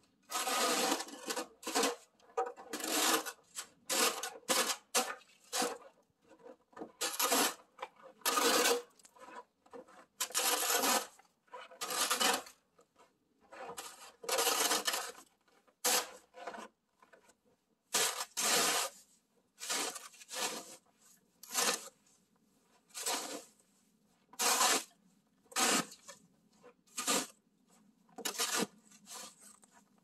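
Snow shovel scraping and scooping snow off wooden steps: a run of repeated scraping strokes, about one a second, some short and some longer.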